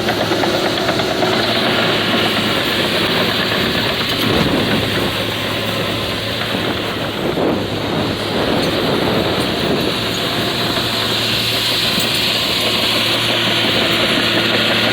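Diesel engine of a John Deere 850J crawler bulldozer running steadily under work, with a constant low drone and a brief change in pitch and load around the middle.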